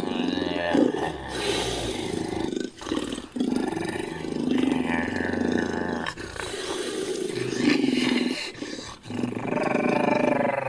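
Sound-designed creature vocalizations built from big-cat recordings: a run of rough roars and growls, several in a row broken by short pauses.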